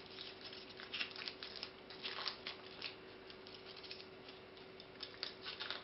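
Plastic ribbon crinkling and rustling in the hands as the loops of a flat bow are pulled apart, in short, faint, irregular crackles.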